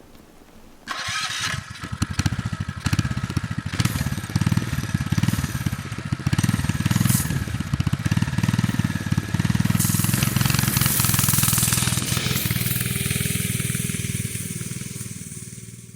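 An engine starts about a second in and keeps running with a fast, uneven beat, fading out near the end.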